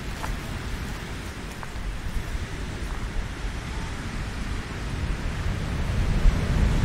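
Wind rushing over and buffeting the microphone: a steady rushing noise with a heavy low rumble that grows louder about five seconds in.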